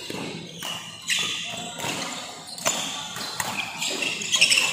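Badminton rally in an indoor hall: rackets striking the shuttlecock at irregular intervals of about a second, with short high squeaks and crowd murmur in between.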